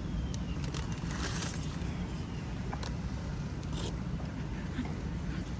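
Steady low background rumble with scattered rustling and scraping noises, and a brief swish a little over a second in.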